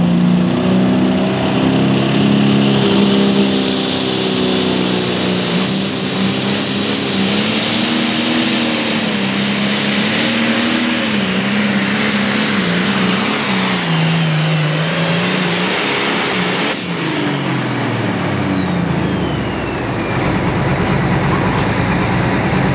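Turbocharged diesel engine of a John Deere 8330 Limited Pro Stock pulling tractor at full power under load during a pull. A high turbo whine rises over the engine, whose pitch wavers as it works. About 17 seconds in, the power cuts off suddenly and the turbo whine falls away as it spools down.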